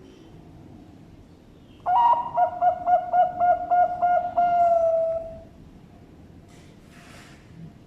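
Bangkok-strain zebra dove (perkutut) cooing one full song phrase: an opening note, a quick run of evenly spaced pulsed coos, then a long held final note that fades, about three and a half seconds in all.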